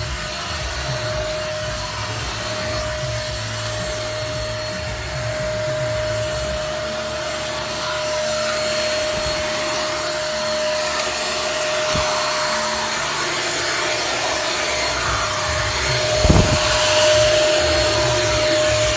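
Keromee 2-in-1 cordless handheld vacuum cleaner running steadily: a constant motor whine over the rush of air. A short knock near the end.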